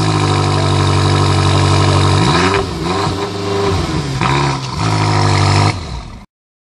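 BMW M5 F10's 4.4-litre twin-turbo V8 revved while parked: held at a steady raised rev for about two seconds, then blipped several times with quick rises and falls in pitch, held again, and dropped back. The sound cuts off abruptly a little over six seconds in.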